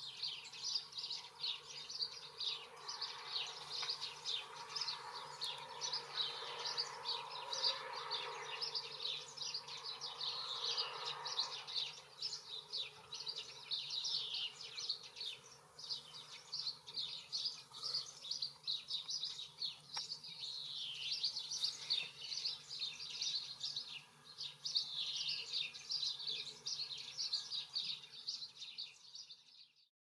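A flock of small songbirds chirping and twittering continuously, many short, quick, high calls overlapping with no pause.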